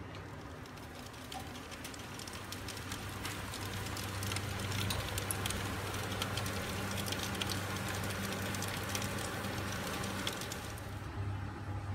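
Fat and juices sizzling and spitting around a whole chicken roasting in an oven: a dense, fast crackle that builds over the first few seconds and cuts off about a second before the end, over a steady low hum.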